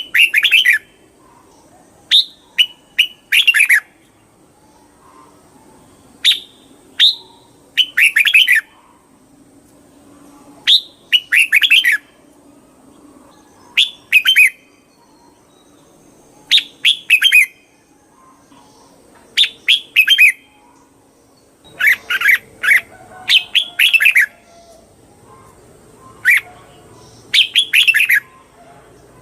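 Red-whiskered bulbul singing: about a dozen short phrases of quick notes, one every two to three seconds.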